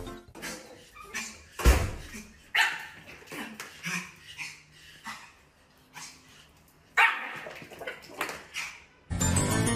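A small dog barking repeatedly in short, sharp barks.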